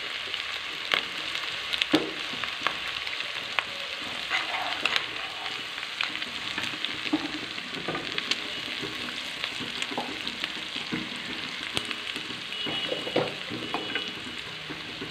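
Sliced onions, small prawns and spices sizzling in hot oil in a pan, with the short clicks and knocks of a wooden spoon stirring them against the pan.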